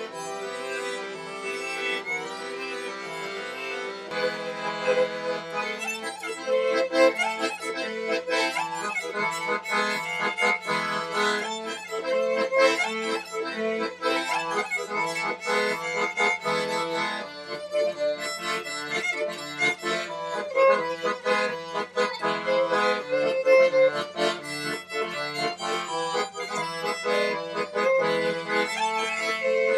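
Instrumental background music: a melody played over sustained held chords.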